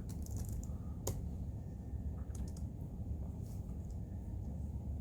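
Typing on a Logitech Craft keyboard: scattered, fairly quiet key clicks in small clusters, with one sharper click about a second in.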